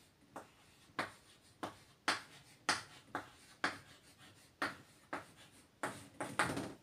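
Chalk writing on a chalkboard: a string of short taps and scrapes, about two a second, as a word is written stroke by stroke.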